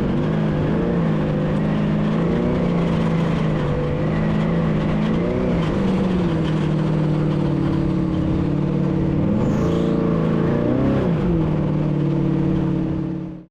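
Unlimited trophy truck engine running hard at a steady pitch, with a few brief dips and pick-ups in revs as the throttle lifts and comes back on. It fades out near the end.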